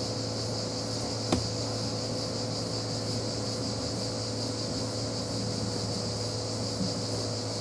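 Steady high-pitched chirring of insects, likely crickets, over a low constant mechanical hum, with one sharp click about a second and a half in.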